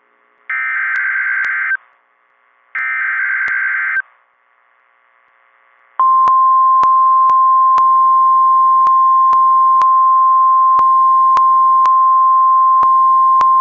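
NOAA Weather Radio Emergency Alert System alert opening a severe thunderstorm warning. Two raspy digital SAME header bursts, each about a second long, are followed about six seconds in by the steady 1050 Hz warning alarm tone. Faint clicks about twice a second, an editing artifact, run under the tone.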